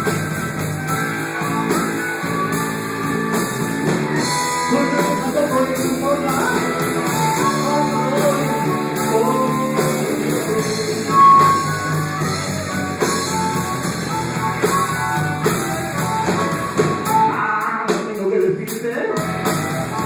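Live band music: an instrumental passage led by guitar over drums, between sung verses.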